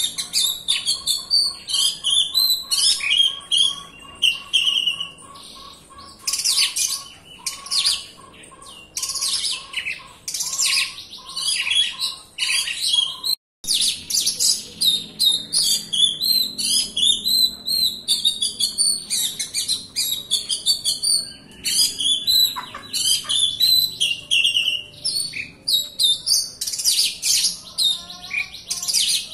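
Oriental magpie-robin (kacer) singing a rapid, dense song of varied chirps and whistles, breaking off for an instant about thirteen seconds in.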